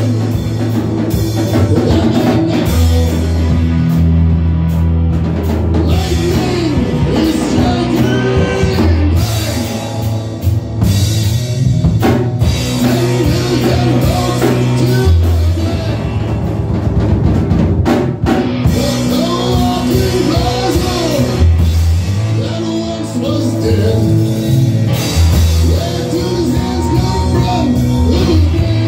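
Live rock power trio playing a psychedelic jam: electric guitar, electric bass and drum kit, with steady bass notes and crashing cymbals.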